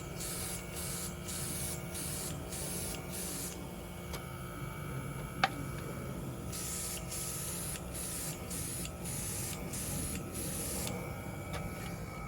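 Nail art airbrush spraying model paint in short on-off bursts of hiss, a pause of a few seconds midway, over a steady hum. A single sharp click about five and a half seconds in.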